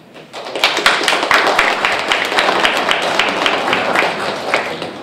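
Audience applauding: many hands clapping that start about half a second in and die down near the end.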